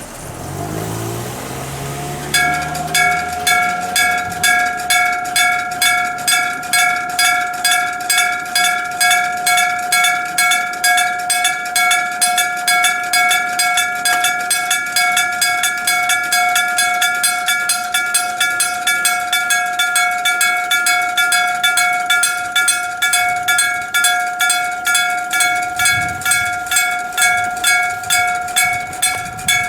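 Japanese railway level-crossing electric bell: a hammer striking an aluminium-alloy bell over and over in an even fast rhythm, the crossing's warning that a train is coming. It starts about two seconds in, just after a low hum rising in pitch.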